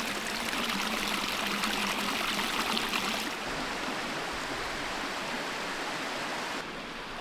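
Stream water running steadily, a constant rushing. The rush turns abruptly duller and a little quieter about three and a half seconds in, and again near the end.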